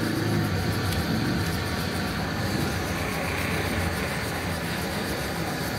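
Hose-fed gas torch burning with a steady hissing rush and a low hum as its flame heats a steel bicycle frame.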